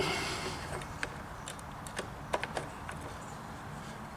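Scattered light clicks and taps of the plastic side cover being handled and fitted onto a Sachs-Dolmar chainsaw over the bar and chain, a few small knocks spread about half a second to a second apart.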